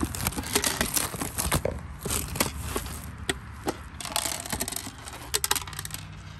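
Plastic wrapping being torn and crinkled off a new plastic project box: dense crackling for the first couple of seconds, then scattered crackles.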